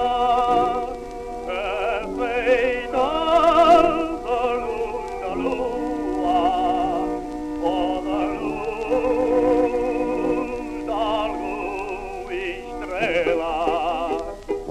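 Old record of a Portuguese song playing: a melody with heavy vibrato carried over accompaniment.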